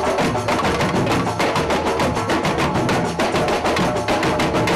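A large group of drummers playing together, with big bass drums, hand drums and tambourines beating a fast, even rhythm.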